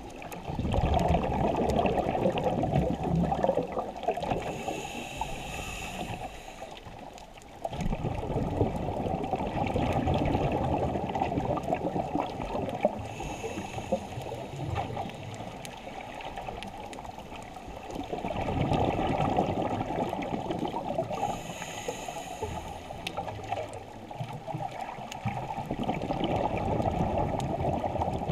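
Scuba diver breathing through a regulator, heard through an underwater camera housing: long spells of exhaled bubbles alternating with a shorter, high hiss of inhalation, about one breath every eight seconds.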